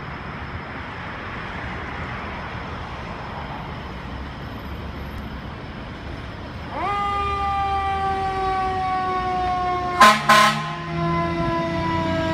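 A fire engine responding: a steady low rumble, then about seven seconds in its siren winds up sharply and slides slowly down in pitch. About ten seconds in, two short, loud air horn blasts cut over the siren.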